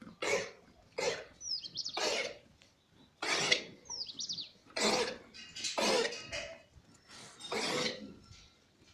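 Goats giving short, hoarse calls, about eight in a row at irregular intervals, with a couple of quick bird chirps between them.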